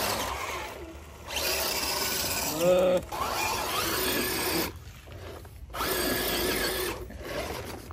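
Electric motors and gearboxes of 1/10-scale RC rock crawlers whining in stop-and-start bursts as they climb, the pitch rising and falling with the throttle.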